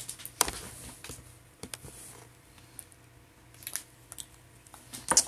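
Handling noise from the phone being moved and small makeup items being picked up: scattered clicks and knocks, with a loud knock about half a second in and another near the end.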